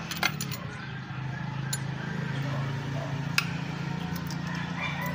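A few sharp metal clicks as a ring wrench and screwdriver work the adjusting screw and locknut on an engine's valve rocker arm, over a steady low hum.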